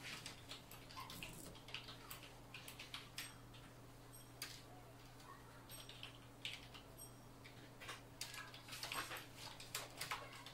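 Faint irregular clicks and rubbing as fingers handle and turn the rings of a microscope's C-mount zoom lens, with a denser run of clicks near the end, over a steady low hum.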